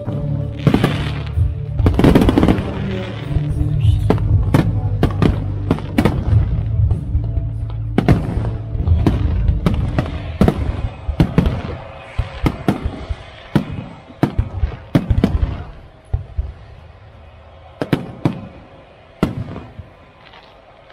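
Aerial firework shells bursting in a rapid run of sharp bangs over music; the music fades away through the first half and the bangs thin out to a few single reports near the end.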